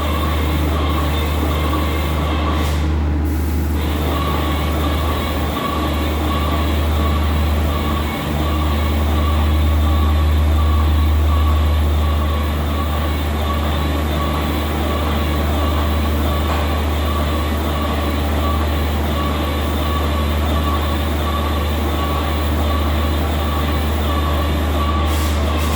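Machinery running steadily: a loud, deep hum with a steady high whine over it, unchanging in level.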